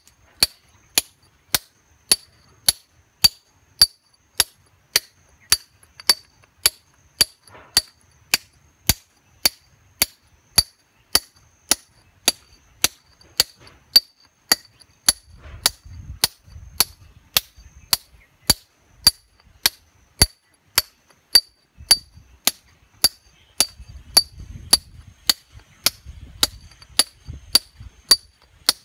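Hand hammer striking a steel chisel against solid rock to break stone, a steady rhythm of about two sharp metallic strikes a second, each with a brief high ring.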